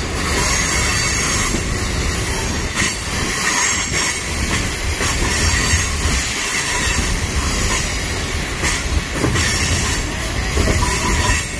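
Royal Gorge Route Railroad passenger train rolling along the track: steady rumble and rail noise of the cars' wheels, with some wheel squeal as the train rounds a curve.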